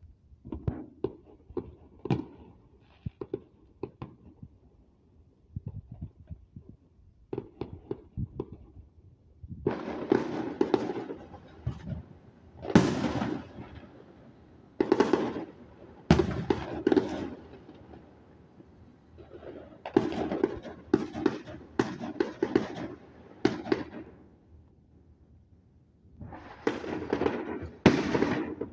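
Aerial fireworks bursting: scattered sharp bangs early on, then salvos of rapid crackling pops lasting a second or two each, with short lulls between.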